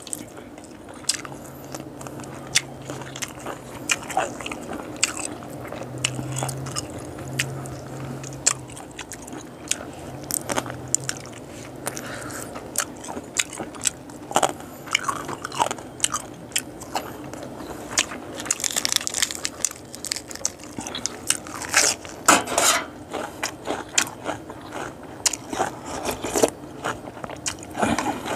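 Close-up eating sounds: a man biting, chewing and crunching boiled frog, with many sharp wet clicks and crackles from the mouth and fingers, busier and louder in the second half.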